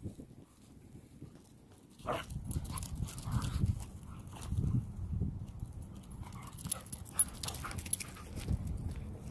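An Australian cattle dog and a black curly-coated dog play-fighting, with rough low dog noises, panting and scuffling on wood chips. A short, falling whine comes about two seconds in, after a quieter start.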